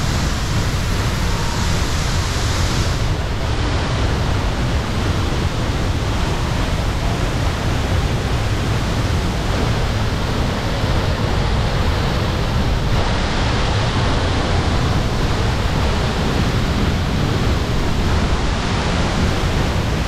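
Waterfall pouring into a rock pool: a loud, steady rushing noise that gets somewhat brighter at a couple of points.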